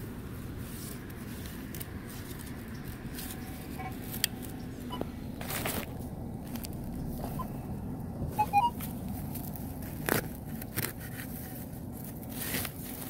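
Muffled rustling and scraping of close handling noise while digging into turf for a metal detector target, broken by a few sharp knocks and some faint short beeps.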